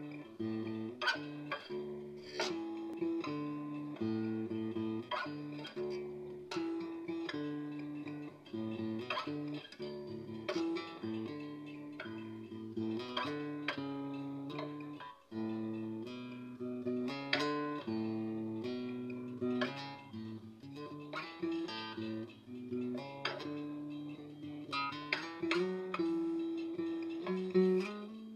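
Acoustic guitar played solo, plucked by hand: a bass line of repeating low notes with higher notes picked over it.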